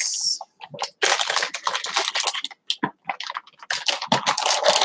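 Rustling and crinkling of items and packaging being handled: two stretches of rapid crackling with a short pause around the middle.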